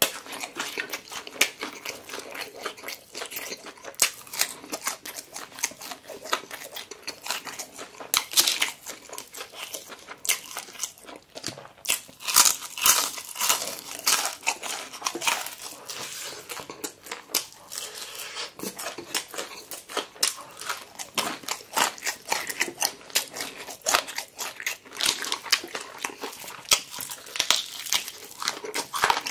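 Close-miked chewing and crunching of crispy fried chicken, a fast run of crackles from the breading, densest around the middle.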